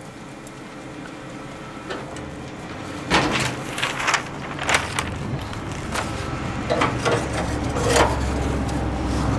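Pink butcher paper rustling and crinkling in short strokes as it is handled, over a low steady hum that grows louder.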